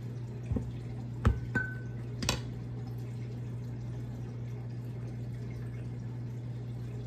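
A few knocks and a short ringing clink of a spoon against a glass measuring cup, then a little water poured from the cup into a plastic mixing bowl, all over a steady low hum.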